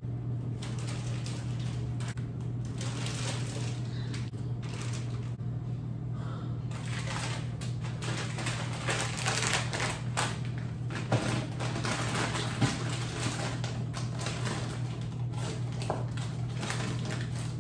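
Plastic freezer bags of meat rustling and crinkling as they are packed into a fridge's freezer compartment, with two sharper knocks about two-thirds of the way in. A steady low hum runs underneath.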